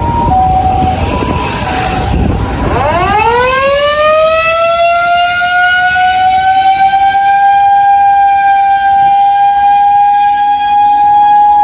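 An emergency vehicle's two-tone hi-lo electronic siren alternates briefly. Then, about two and a half seconds in, a mechanical motor siren winds up from low pitch, rising quickly, and settles into one loud, steady wail.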